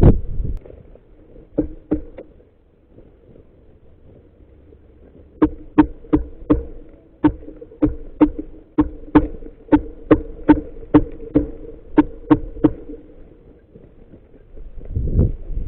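A mallard duck call blown in a long, even series of about twenty short quacks, about three a second, to draw in passing mallards. The quacks are preceded by a few soft clicks, and there is a low rumble at the start and again near the end.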